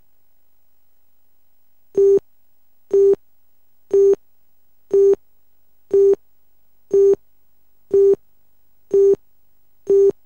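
Countdown leader beeps: a short, steady electronic tone sounding once a second, nine times, one beep for each number of the countdown down to two.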